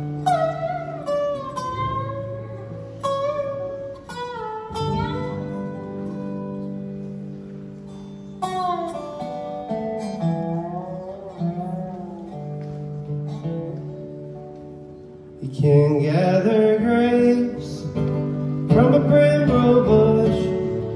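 Live acoustic bluegrass band playing an instrumental passage: dobro, acoustic guitars, banjo, mandolin and fiddle. Sliding dobro notes lead over the picked strings, and the full band comes in louder about 15 seconds in.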